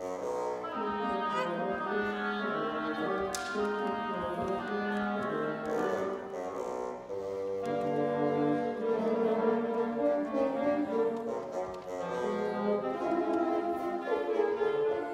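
Woodwind quintet of flute, oboe, clarinet, French horn and bassoon playing a classical piece together, with held notes in several parts.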